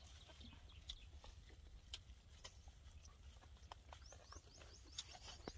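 Near silence with scattered faint clicks of spoons on plates and plastic handled during an outdoor meal. From about four seconds in, a faint rapid series of short high rising chirps, several a second.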